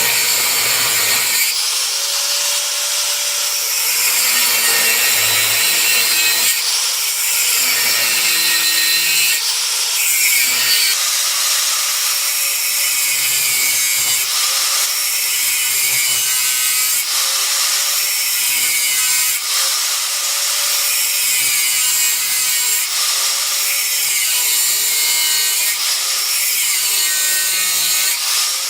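Slow back-and-forth abrasive strokes by hand, scraping at about one stroke every two seconds, with faint squeaks: hand-shaping or smoothing work on the old pocket knife.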